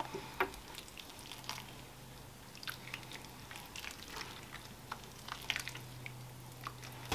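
Water from a watering can trickling onto dry potting soil in a plastic tray, heard as faint scattered crackles and drips as the mix is wetted. A low steady hum runs underneath.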